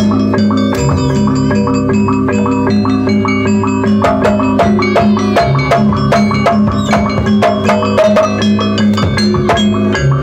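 Jaranan gamelan music playing: rapid strikes on bronze gong-chimes and metallophones over drumming, with long ringing gong tones underneath.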